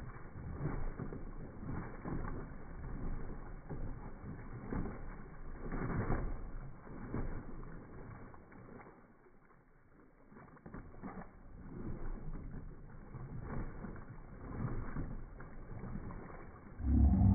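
Slowed-down splashing and sloshing of water as a dog paddles and thrashes in a plastic kiddie pool, coming in irregular surges, with a louder splash right at the end.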